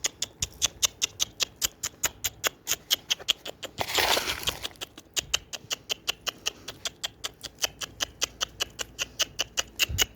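Pigeons pecking at grain: a quick, even run of sharp ticks, about four or five a second, with a short rustling burst about four seconds in.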